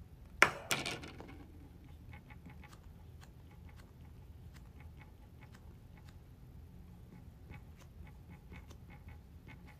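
A loud knock about half a second in, as something is handled and set down on a desk. It is followed by a long run of faint, short ticks and light scratches from writing by hand with a pen on paper.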